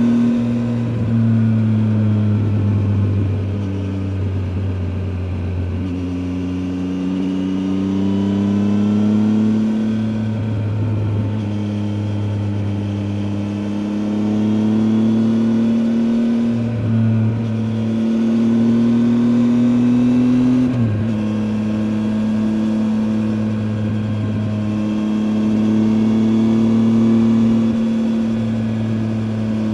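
Triumph Tiger 800 XCA's three-cylinder engine pulling along the road, its note climbing slowly under throttle and dropping abruptly several times as the rider shifts gear or rolls off.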